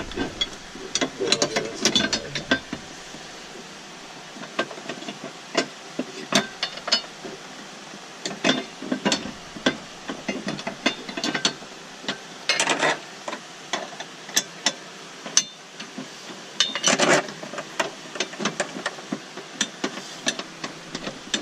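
Hand ratchet clicking in short runs as bolts are driven in, among scattered sharp clicks and knocks of tools and metal parts.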